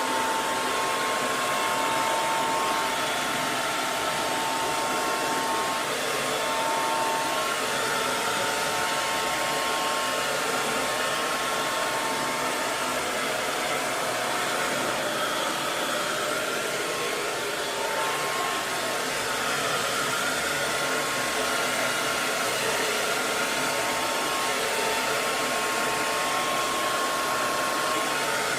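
Hair dryer running steadily: a continuous rush of blown air with a faint high motor whine, kept on as white noise.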